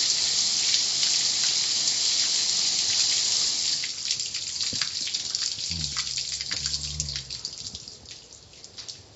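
Car wash water spraying steadily onto a car, then easing off about four seconds in to scattered drips and patter. A low hum sounds briefly partway through.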